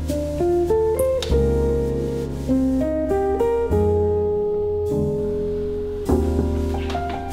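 Instrumental background music led by plucked guitar notes over a low bass line.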